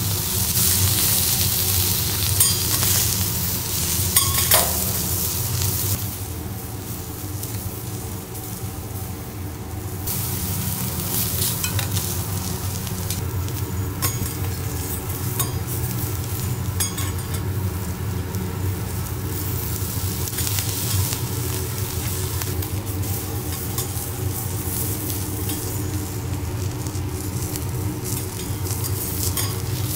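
Prawns and scallops in the half shell sizzling on a steel teppanyaki griddle, with metal spatulas clicking and scraping on the plate now and then. The sizzle is loudest in the first few seconds, drops about six seconds in and picks up again around ten seconds, over a steady low hum.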